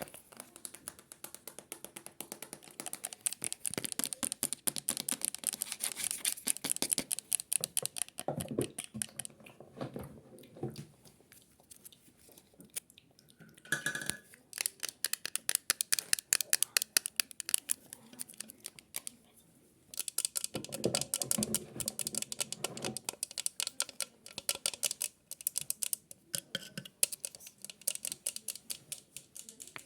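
Rapid close-up tapping and scratching clicks in long dense runs, broken by a couple of short pauses.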